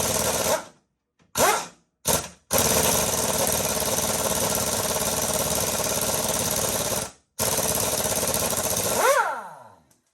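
Handheld power tool driving a 15 mm bolt, run in several bursts of steady, loud whirring with short gaps between them. It ends with a falling whine as the motor spins down.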